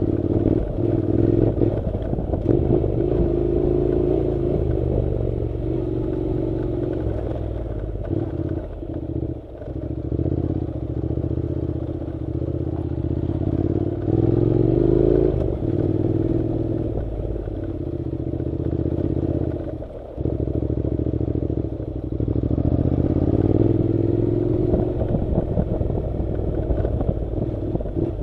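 Honda NC700 motorcycle's parallel-twin engine running while being ridden on a dirt road, its revs rising and falling with the throttle and briefly dropping off twice, about ten and twenty seconds in.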